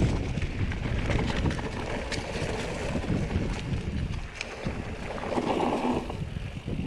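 Mountain bike riding down a rough trail: wind buffeting the camera microphone over the rumble of the tyres, with scattered clicks and rattles from the bike over the ground.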